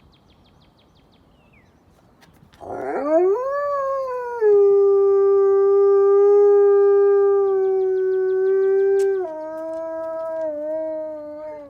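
Wolf howling: one long howl that rises at the start, holds a steady pitch, then drops to a lower pitch near the end before trailing off.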